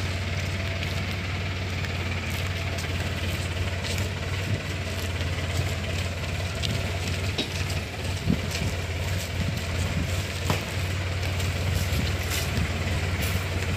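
Sonalika tractor's diesel engine running steadily at low speed as it tows a trolley, with a few short knocks and rattles scattered through.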